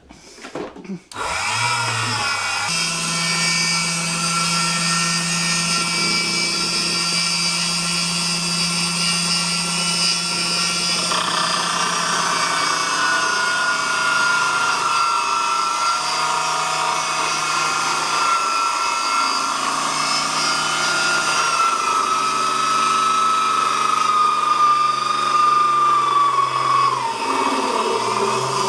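Emco Unimat small lathe's 90-watt motor starting about a second in with a rising whine, then running steadily and turning a small piece of steel in the chuck. Near the end the whine sags slightly lower.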